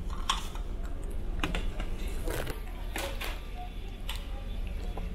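Ceramic plates and a bowl clinking and knocking against a plastic cafeteria tray as dishes are set on it and the tray slides along a buffet counter: a string of sharp, separate clicks about every half second to second, over a steady low hum.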